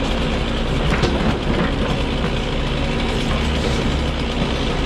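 Grapple truck's engine running steadily while the hydraulic grapple works into an oak stump's root ball, with rattling from the boom and grapple and a few sharp knocks about a second in.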